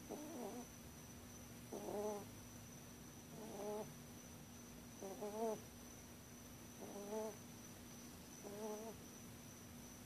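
Pet rabbit snoring in its sleep: six short, wavering snores at an even pace, about one every second and a half.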